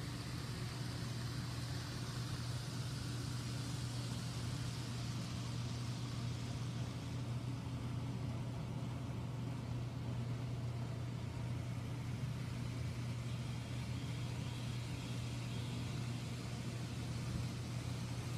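N scale model train running on its track, heard as a steady low hum with a faint whir over it.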